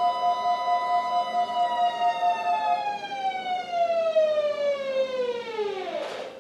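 A loud siren-like tone with a second, lower steady tone beneath it, pulsing about twice a second. After about a second and a half the main tone slides steadily down in pitch, the lower tone stops at three seconds, and the whole sound cuts off just before the end.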